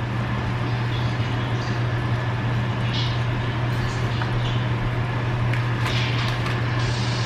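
Steady low hum with a hiss over it while eggs and toast cook on the stove, with a few light clinks of a fork against the frying pan as the toast is lifted out.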